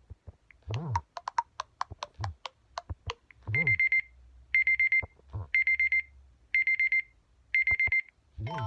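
An LG Aristo 2 phone alarm tone in the classic digital alarm-clock style, played through the phone's speaker. After a few sharp clicks, it gives five bursts of quick high beeps, one burst about every second. Near the end another, melodic tone begins.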